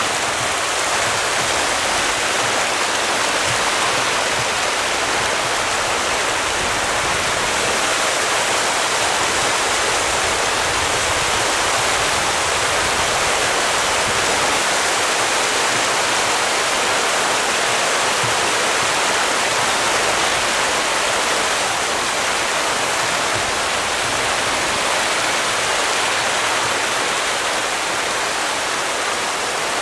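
Water splashing and churning steadily as a dense shoal of striped catfish (pangasius) thrashes at the surface in a feeding frenzy for pellet feed.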